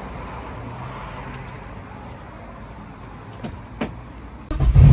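Quiet background with a couple of soft clicks, then about four and a half seconds in a loud, low car engine rumble cuts in abruptly and keeps going: the BMW E30 running.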